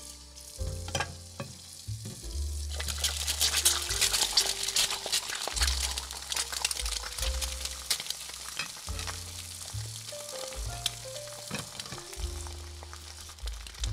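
Battered shrimp frying in hot oil in a tiny cast-iron skillet: a crackling sizzle that starts suddenly about three seconds in and is loudest just after, over background music.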